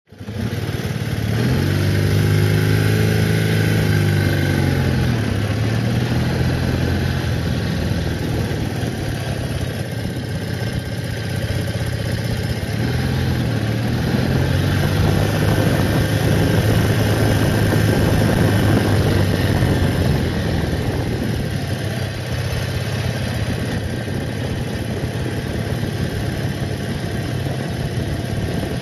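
BMW R80RT's air-cooled flat-twin engine running while the bike is ridden, its pitch rising and falling twice, near the start and again about halfway through, over a steady rush of wind and road noise.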